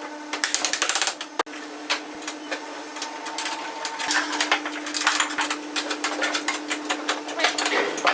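A woodworking power tool running: a steady motor hum with a fast, dense rattle of strokes over it, which comes and goes as the tool works the wood.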